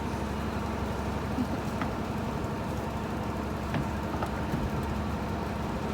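A boat's engine running steadily with a low, even hum while the yacht manoeuvres at slow speed.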